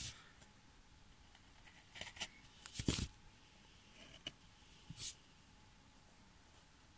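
Carving knife cutting into a wooden edge: a few short, dry cuts and scrapes of the blade through the wood, the loudest about three seconds in.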